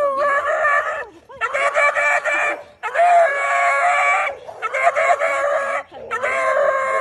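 A dog giving five drawn-out, wavering vocal calls in a row, each about a second long with short breaks between.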